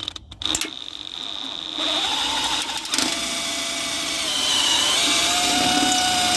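DeWalt XR cordless drill running a bit through the Jeep's sheet-steel body panel, enlarging the hole of a drilled-out broken fastener. A steady motor whine that starts and stops briefly at first, then runs on and dips in pitch about three seconds in.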